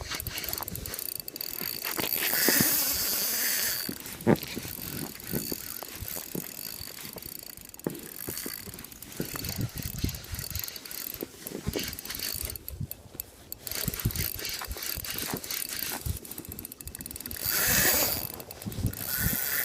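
Fishing reel being wound, a run of mechanical ratcheting clicks, with scattered knocks and two short bursts of hissing noise, one about two seconds in and one near the end.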